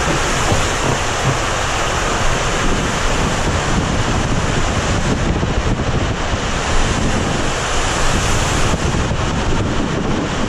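Water rushing through an enclosed water slide tube as a round family raft slides down it: a steady, loud rush of water noise.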